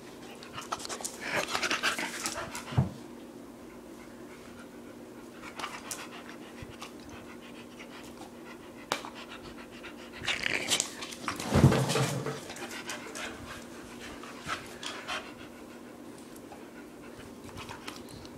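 A dog panting in two spells, each ending with a thump.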